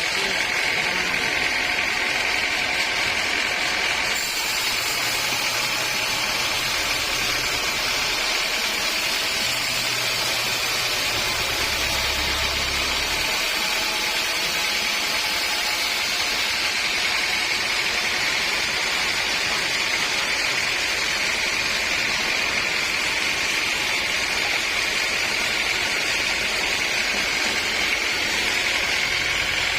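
Sawmill machinery running steadily, a constant mechanical noise with a steady high whine.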